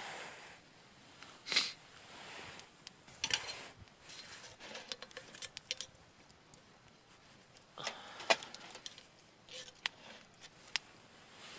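Camp cooking gear being handled: scattered small metallic clinks and short rustles, with two louder knocks, one near the start and one about two-thirds of the way through.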